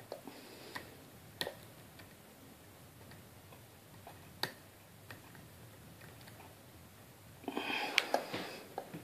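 Lock pick and tension wrench working a Corbin pin-tumbler cylinder: scattered small metallic clicks and taps as pins are probed and set, with sharper clicks about a second and a half, four and a half and eight seconds in, and a brief louder patch of scraping around the eight-second mark.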